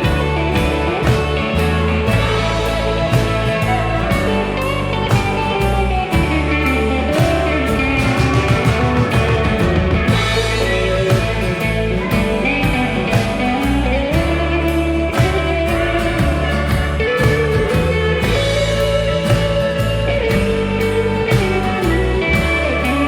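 Country-rock band playing an instrumental break in the middle of a song: drums keeping a steady beat under upright bass, with a gliding lead line from guitar over the top.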